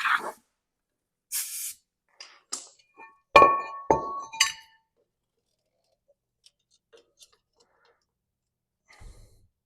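Compressed-air blowgun hiss cutting off, then a second brief blast of air. After that come light metallic clinks and two sharp, ringing knocks of steel brake parts or tools about three and a half to four seconds in, followed by one more clink.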